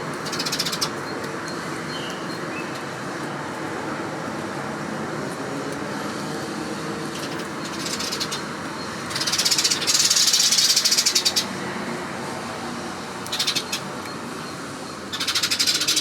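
Great spotted woodpecker tapping rapidly with its bill in several short bursts of fast clicks. The longest and loudest burst runs about two seconds near the middle. Underneath is a steady background hum.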